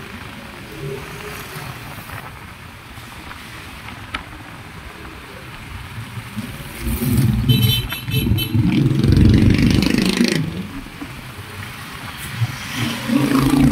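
Engine and road noise of traffic heard from a moving motor scooter, with louder low rumbling from about seven seconds in until about ten, and again near the end.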